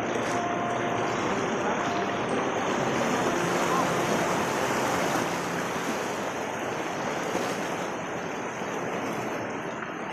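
Steady rush of a shallow river running over rocks and stones.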